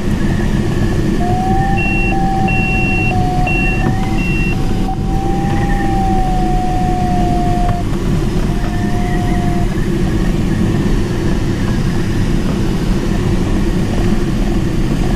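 Steady rush of airflow around the cockpit and canopy of a Mini Nimbus HS7 glider in flight. An electronic variometer tone sounds for most of the first ten seconds, drifting slightly in pitch, and four short higher beeps come about two to four seconds in.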